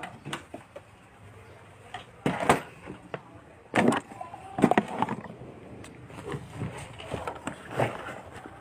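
Handling noise from a phone being moved about: irregular knocks, bumps and rubbing, with a cluster of louder bumps in the middle.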